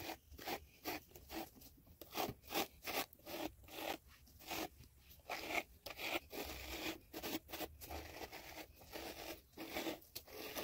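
Scratchy rustling strokes of a brush and hands working through thick hair, irregular, about one or two a second.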